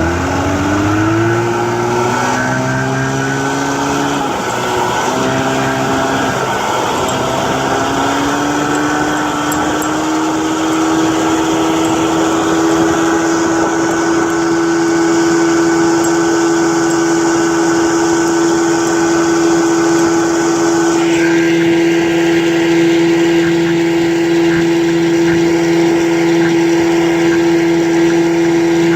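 1967 Evinrude Fastwin 18 hp two-cylinder two-stroke outboard motor being throttled up: its pitch climbs in a few steps over the first several seconds, then holds steady at running speed.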